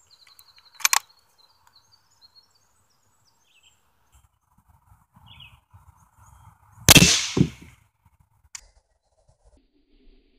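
A single shot from a .22 rifle firing a CCI Quiet 22 round, a low-powered subsonic load, makes a short crack about seven seconds in. A second sharp crack follows about half a second later, which sounded to the shooter like the bullet bouncing straight off the Kevlar helmet. There is a sharp click about a second in.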